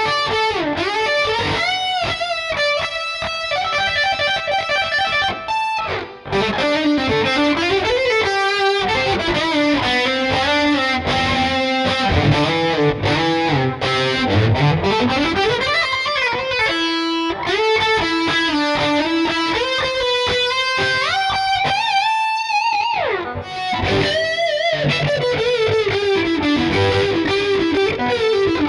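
Schecter C1 Elite electric guitar played through a distorted tone with a little reverb: a lead solo of fast runs and held notes with wide vibrato and string bends, with one long slide down and back up about halfway through.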